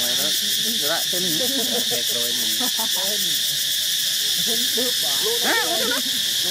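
Macaques giving short rising-and-falling coos and grunts, several in quick succession and a louder cluster near the end, over a steady high drone of forest insects.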